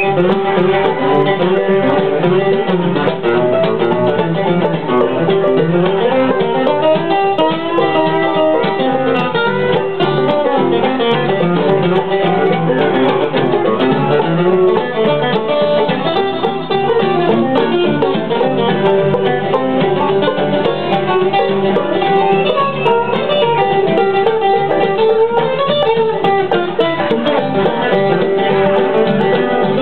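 Live acoustic string band playing an instrumental stretch of a bluegrass-style song, acoustic guitar strumming under busy plucked-string picking. The music is loud and steady throughout, with a dull, muffled top end.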